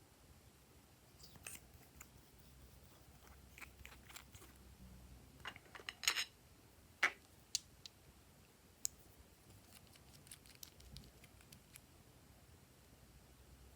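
Glossy slime being mixed and worked by hand, giving faint sticky clicks and small pops at irregular intervals, with a louder cluster of crackles about six to seven seconds in.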